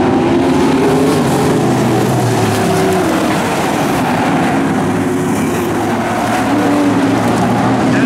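A field of pro stock dirt-track race cars running at speed around the oval, several engines at once in a loud, steady drone, their pitch shifting a little as cars come through the turns and pass.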